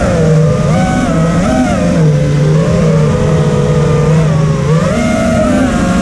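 An FPV mini quadcopter's brushless motors and propellers whine loudly, heard from its own onboard camera. The pitch swings up and down several times as the throttle changes while it flies.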